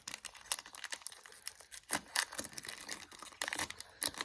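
Foil wrapper of a football card pack being torn open and crinkled: quick, irregular crackles, with louder bursts about two seconds in and near the end.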